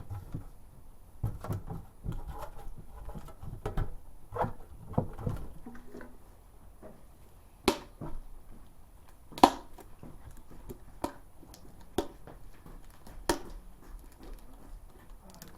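Hands working the plastic shrink-wrap off a factory-sealed metal Yu-Gi-Oh collector's tin: scattered rustling and crinkling, then several sharp clicks or taps spaced a second or more apart.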